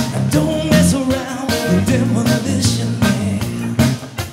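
A rock band playing live, with electric guitars, bass and drums.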